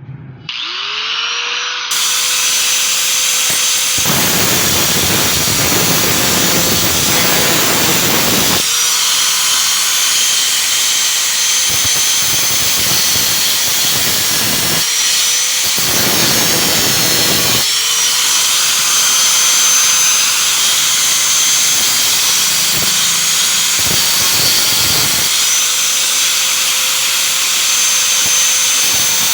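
Hand-held electric power tool cutting a slot for a screw: its motor spins up to a steady whine about five times, with long stretches of harsh grinding noise as it bites into the work.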